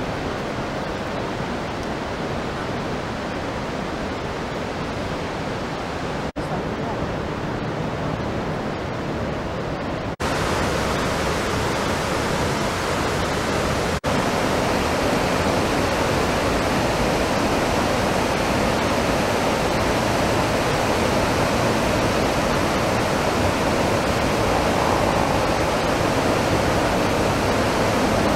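Large waterfall rushing: a dense, steady noise of falling water, spread across the whole range. It breaks briefly where the footage cuts and is louder from about ten seconds in.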